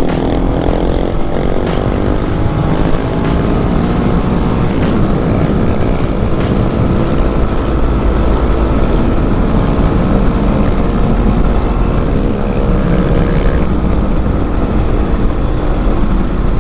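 Husqvarna 701's single-cylinder engine under way, its pitch rising over the first couple of seconds and then holding steady. The engine tone fades about 14 seconds in, leaving heavy wind rumble.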